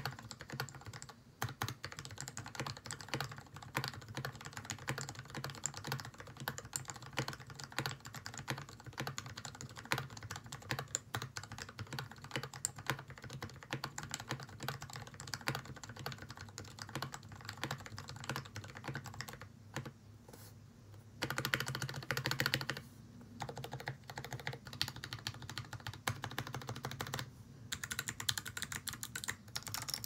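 Typing on a Tofu65 65% mechanical keyboard with lubed Gateron Ink Black v2 linear switches in a brass plate and pudding keycaps: a steady, irregular run of keystroke clacks. There is a short pause a little before two-thirds of the way through, followed by a louder, faster flurry.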